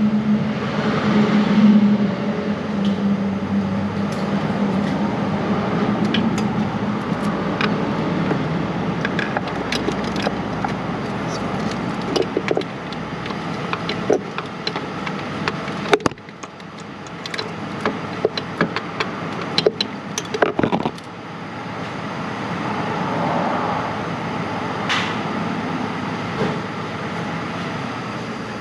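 Scattered metallic clicks and clinks of hand tools (sockets, extensions and ratchets being handled and fitted onto a starter mounting bolt) over a steady background hum, the clicks coming thickest in the middle.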